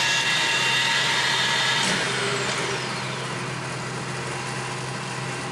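1979 Clausing Colchester Master 2500 engine lathe headstock running at high spindle speed with a steady gear whine. About two seconds in there is a click, and the whine falls away as the spindle slows, leaving a steadier, quieter hum.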